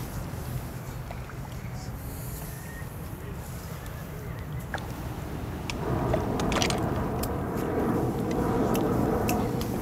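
Steady low outdoor rumble with small clicks. About six seconds in, a tied brown paper bag on the wooden dock is grabbed by hand, and its paper rustles and crinkles for the next few seconds.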